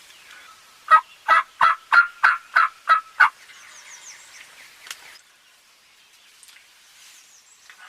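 Wild turkey yelping: a run of about eight evenly spaced yelps, roughly three a second, lasting about two and a half seconds.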